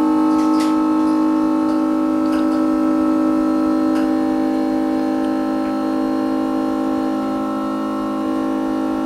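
Background music: a sustained synth or organ-like chord held steady, with a few faint ticks.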